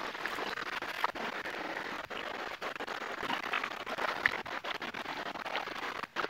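Rustling and crackling of tall grass and brush being pushed through close to the microphone, with scraping handling noise and scattered clicks.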